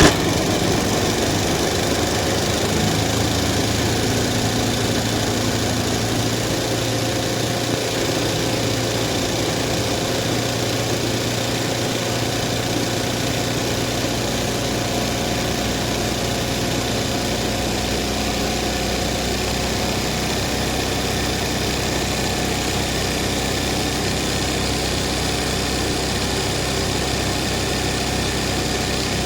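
Embroidery machine running steadily while stitching a zari (kasida) design, a continuous mechanical running sound with a fast, even rhythm.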